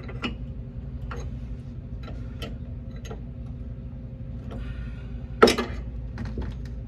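Scattered short metallic clicks and knocks of hand tools at work on a rear shock absorber that won't seat, with one sharper knock about five and a half seconds in, over a steady low hum.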